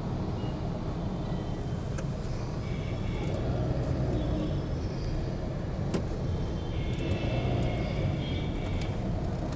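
Dense, slow-moving road traffic of cars and motorbikes with engines running, a steady low rumble. Vehicle horns sound in the background about three seconds in and again for a couple of seconds near the end.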